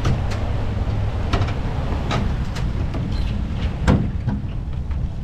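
A tow vehicle pulling a loaded boat trailer up a concrete launch ramp: a steady low engine and road rumble with scattered rattles and clunks from the trailer. The loudest clunk comes a little before four seconds in.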